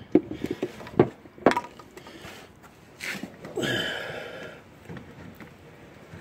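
Plastic gear-oil squeeze bottle being handled and squeezed while filling a truck's front differential: three sharp knocks, then a brief hiss and a longer crinkling rasp of the bottle about three to four seconds in.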